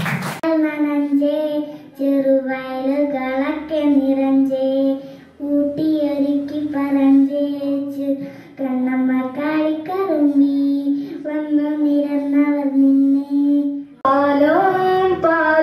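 A girl singing solo into a handheld microphone, holding long, slightly wavering notes with short breaks between phrases. About 14 seconds in, the sound cuts abruptly to another voice singing.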